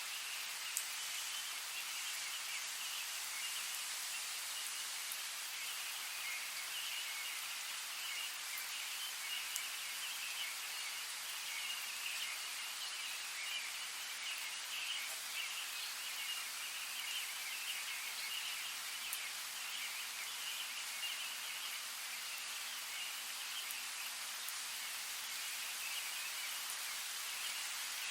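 Steady rainfall on forest foliage: an even hiss with the odd louder drop ticking through.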